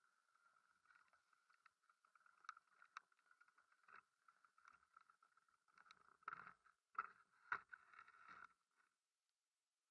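Faint knocking and rustling from a bike-mounted action camera being jostled as the bike is moved and laid against bushes. A few sharper knocks come about six to eight and a half seconds in, and the sound cuts out about nine seconds in.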